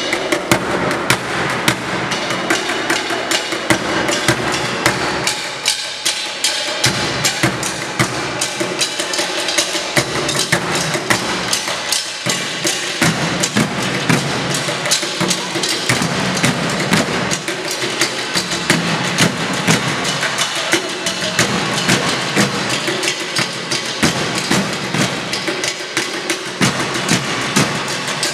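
Percussion ensemble drumming with sticks on plastic buckets and containers, a fast, dense rhythm of many sharp strikes.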